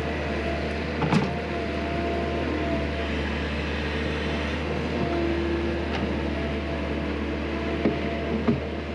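Skid steer loader engine running steadily while it works road stone, with a few sharp knocks about a second in and twice near the end.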